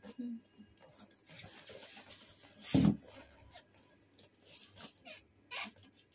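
Packing tape on a small cardboard parcel being scratched and slit with a sharp point, with rustling and scraping of the tape and box. One short, much louder knock about three seconds in stands out above the rest.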